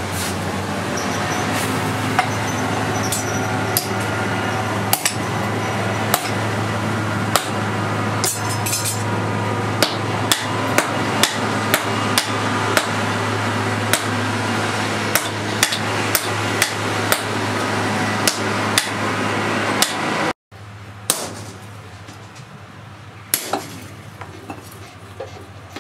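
Hand-hammer blows on a red-hot steel axe blank held on an anvil, struck at an uneven pace of about one to two a second over a steady low hum. About 20 seconds in the sound drops out for an instant, and afterwards only a few scattered, quieter blows follow.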